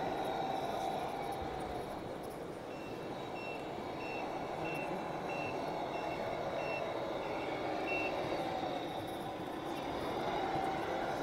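Reversing beeper of a radio-controlled Mercedes Actros truck: a row of about eight short, high beeps, roughly one every two-thirds of a second, starting about three seconds in and stopping near eight seconds, over steady background noise.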